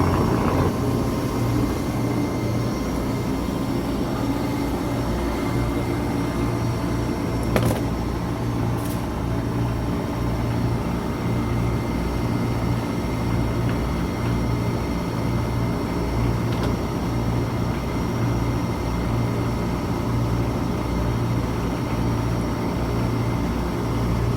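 Fishing boat's machinery running steadily: a low, slightly pulsing hum with a constant thin high whine over it. A single sharp click comes about seven and a half seconds in.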